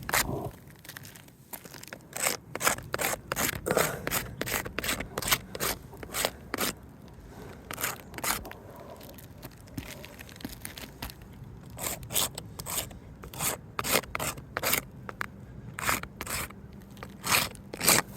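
Many short, irregular, gritty scrapes and rubs against asphalt roof shingles, about two or three a second, with brief pauses.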